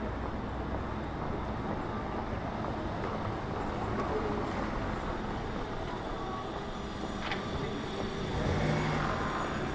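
Steady road traffic noise: a continuous low rumble and hiss of vehicles.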